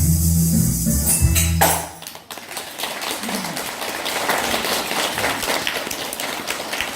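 A children's instrumental ensemble's music stops about two seconds in, and the audience breaks into applause.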